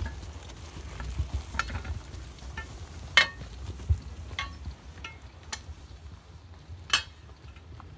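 Trace chains and harness hardware of a team of two draft horses clinking irregularly as the team drags a tractor-tire sled, with the loudest clinks about three seconds in and again about seven seconds in, over a low steady rumble.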